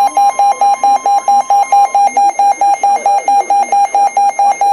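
Weather alert radio sounding its alarm: a rapid, steady electronic beeping, about six beeps a second, signalling a warning alert. A fainter steady tone runs underneath for the first two seconds, then stops.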